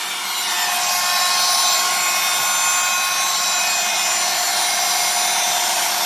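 Handheld vacuum cleaner running steadily: an airy rushing hiss with a constant motor whine, rising slightly just after the start.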